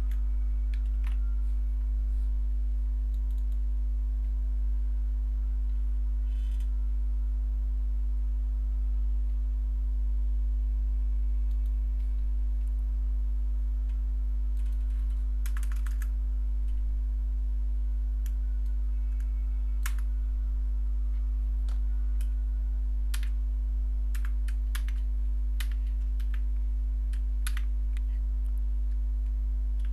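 Scattered keystrokes on a computer keyboard, in short runs that come more often in the second half, over a steady low hum.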